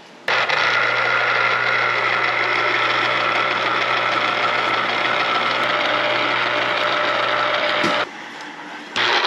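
Electric citrus juicer motor running with a steady hum while lemons and oranges are squeezed. It cuts out abruptly about eight seconds in and starts again near the end.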